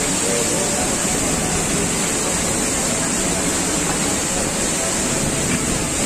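Steady, even rush of a waterfall and its river running high in flood.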